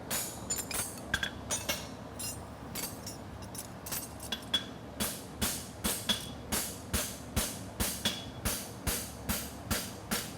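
Hand hammer striking a hot steel horseshoe on an anvil, forging a side bone front shoe: a few scattered blows, then a steady run of ringing strikes, about two and a half a second, from about five seconds in.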